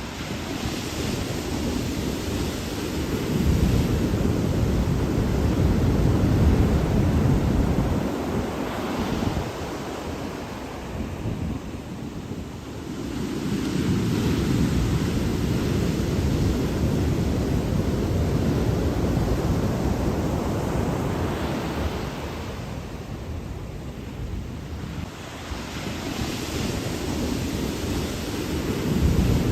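Ocean surf: waves breaking and washing ashore in slow swells, each building to a roar and fading away, about every ten to twelve seconds.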